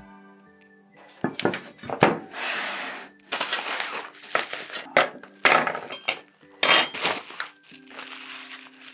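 Plastic bubble-wrap packaging crinkling and rustling in irregular bursts as it is unwrapped, with a few clinks of metal utensils. Soft background music plays underneath.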